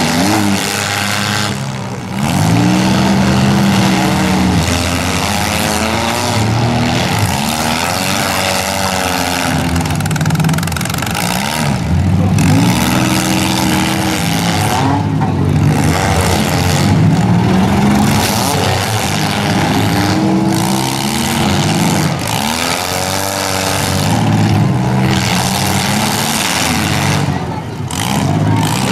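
Engines of several compact demolition-derby cars revving up and down over and over, their pitches rising and falling and overlapping as the cars accelerate and back up into one another.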